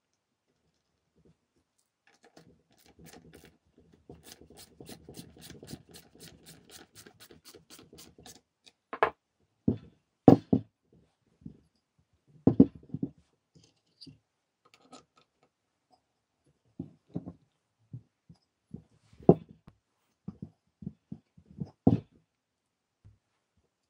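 Metal parts of an old Dacia alternator being handled during reassembly. First a few seconds of fast scratchy clicking, then a string of separate knocks and clunks as the alternator housing is turned over and set against the bench. The loudest clunks come about ten and twenty-two seconds in.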